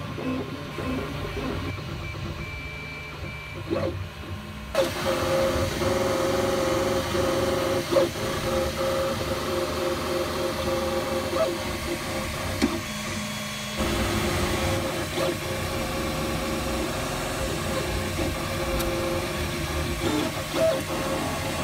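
Dremel 3D printer running a print: the print head's motors whine in several steady tones over the whir of its cooling fan, getting louder about five seconds in, with a few light clicks.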